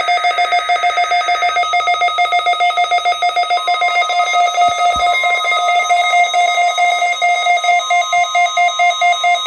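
Weather radio receiver's alarm beeping as a loud, rapid pulsing tone, about three to four beeps a second, set off by the weekly test. About three and a half seconds in, the broadcast's steady NOAA Weather Radio warning alarm tone starts underneath and holds.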